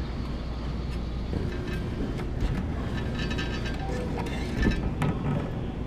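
Arcade din: a steady hum of game machines with faint electronic game music and beeps, broken by a few short clicks.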